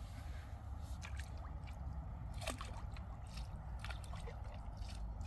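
Faint water sloshing and trickling under a steady low rumble, with a few soft clicks.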